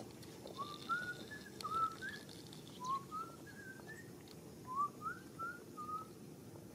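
A run of short, clear whistled notes, each sliding upward in pitch, in three quick phrases of four or five notes.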